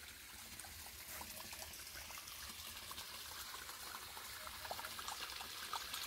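A small stream trickling faintly, a steady wash of water with many small irregular splashes.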